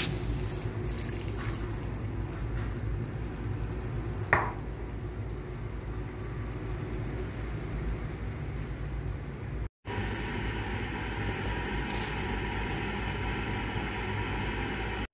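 Sweet and sour sauce with vegetables simmering and sizzling in a frying pan, with a brief knock about four seconds in. The sound drops out for a moment about ten seconds in.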